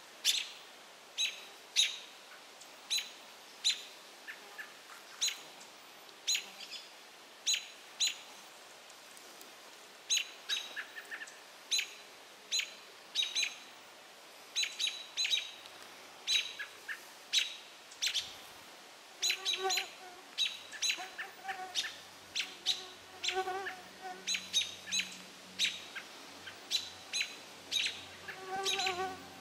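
American robins giving sharp, repeated alarm calls, about one or two a second with a short pause about a third of the way in: mobbing calls at a great gray owl perched in their territory.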